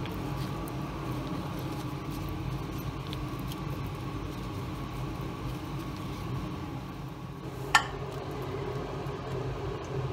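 Steady low mechanical hum of a motor or fan, with one short click that rings briefly about eight seconds in.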